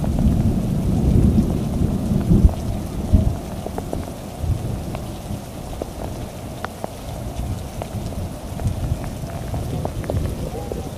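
Heavy rain falling steadily on a garden lawn and paving, with sharp ticks of single drops close by. A deep rumble of thunder fills the first few seconds and then fades under the rain.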